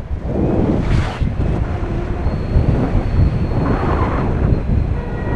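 Wind buffeting a GoPro's microphone on a tandem paraglider in flight: a loud, low, fluttering rumble with a sharper gust about a second in.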